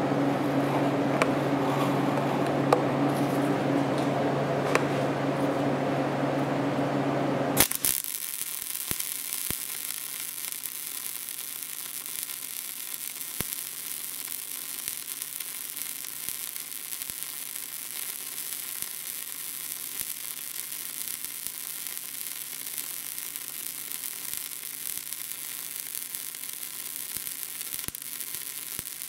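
A steady machine hum runs for the first seven or so seconds. It then gives way abruptly to a MIG welding arc burning on a turning mild steel shaft, a steady hiss with faint crackles, as a buildup bead is laid around the shaft.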